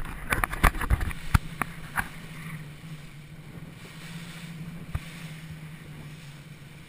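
Rigid inflatable boat under way at sea: a steady low engine hum with rushing water and wind on the microphone. A flurry of loud knocks and thumps in the first two seconds, and a single knock about five seconds in.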